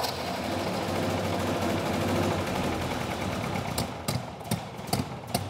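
Four-cylinder carbureted gasoline engine running on glow plugs instead of spark plugs. It runs steadily at first, then roughly, with several sharp irregular knocks in the last second or so. The hot glow plugs fire the mixture on their own, which is basically detonation.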